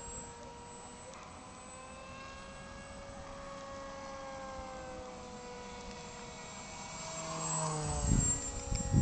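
Radio-controlled model airplane flying overhead, its motor and propeller giving a steady whine that drifts slowly up and down in pitch. Near the end, loud rumbling noise hits the microphone.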